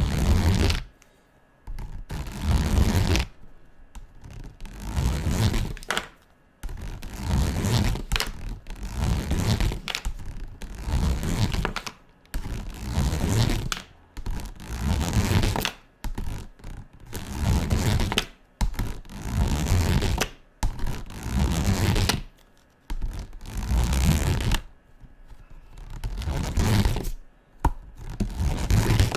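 Felt-tip marker pens scratching back and forth on paper while colouring in, in runs of strokes about one to two seconds long with short pauses between them.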